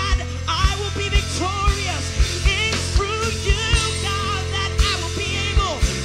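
Live worship band playing: a steady bass and a kick drum about twice a second under a wavering sung melody.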